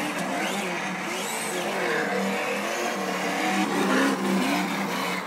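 Electric motor and gear drive of a Traxxas Slash radio-controlled truck whining, its pitch rising and falling again and again as the throttle is worked.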